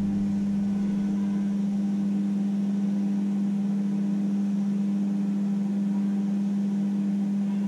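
Steady low mechanical hum, one even tone that holds without change.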